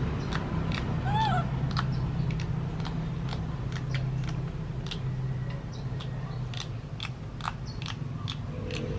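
Baby macaque giving one short squeak about a second in, amid many scattered soft clicks and a low steady hum.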